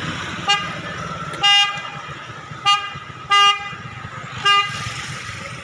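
The approaching intercity bus sounding its horn: five steady-pitched blasts, short toots alternating with longer ones. Road-traffic engine rumble runs underneath.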